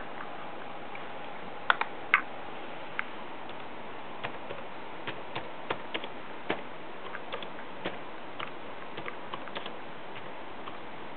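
Sparse, irregular key clicks from typing on a Fujitsu Siemens laptop keyboard, the loudest few about two seconds in, over a steady hiss.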